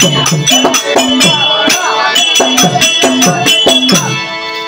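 Therukoothu band accompaniment: a pitched hand drum and small hand cymbals playing a fast beat, about four strokes a second, over a held drone. The percussion stops about four seconds in, leaving the drone.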